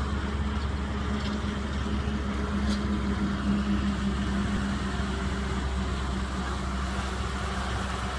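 Truck tractor unit's diesel engine running steadily under load as it drags a disc harrow through the soil.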